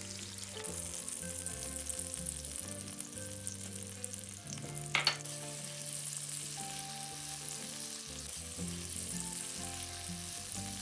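Chopped garlic and spring onion sizzling gently in olive oil in a pan, with a single sharp clink about halfway through.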